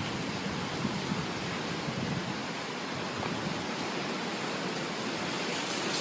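Strong wind of a thunderstorm-driven dust storm blowing as a steady, even rush of noise.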